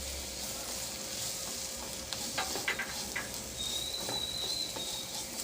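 Chopped onions sizzling in hot ghee and spices in a pan, a steady frying hiss, with a few sharp clicks of a spoon stirring them about two to three seconds in.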